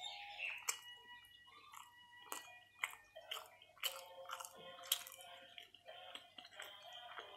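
Close-up chewing and biting of toasted sandwich: irregular sharp crunchy clicks and wet mouth sounds, over soft background music.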